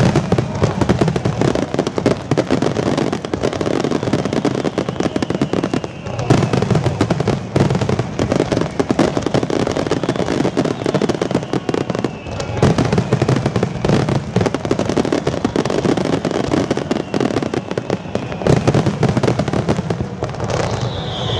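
Aerial firework shells bursting in a dense barrage, a continuous rapid run of bangs and crackling with no pause.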